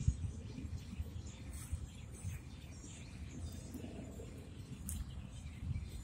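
Small birds chirping intermittently over a steady low outdoor rumble, with a single knock at the start.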